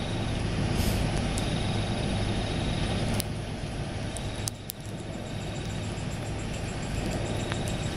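Night-time outdoor ambience: a steady low rumble, with an insect trilling in repeated stretches of a second or two and a few faint clicks.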